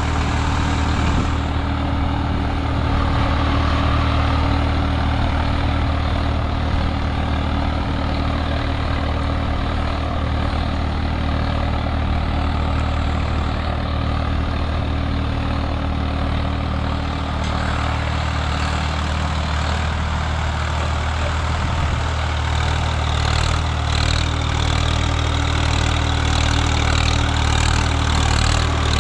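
Swaraj 855 FE tractor's three-cylinder diesel engine running steadily under load during field work. A harsher, rattling noise joins in about two-thirds of the way through.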